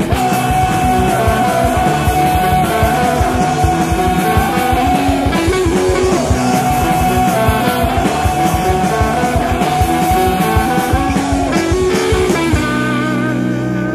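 Punk rock song: fast, steady drumming and electric guitar under a long held sung note. About thirteen seconds in, the drums stop and a sustained guitar chord with a wavering pitch rings on.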